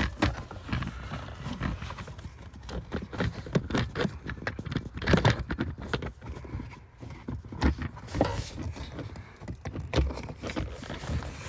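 Irregular light knocks and clicks of blower-motor parts being handled and pushed into place.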